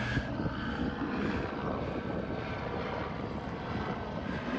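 Police helicopter circling overhead, a steady distant drone of engine and rotor.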